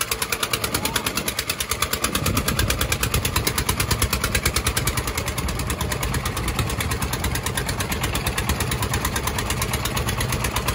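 Fishing boat's engine running with a rapid, even pulse, growing louder and heavier about two seconds in as the boat gets under way.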